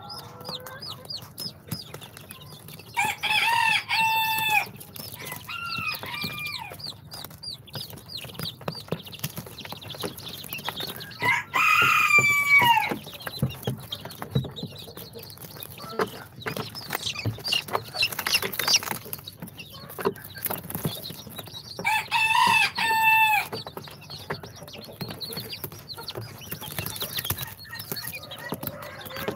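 Young chicks peeping, with several loud bursts of quick repeated calls between softer peeps, and scattered light knocks.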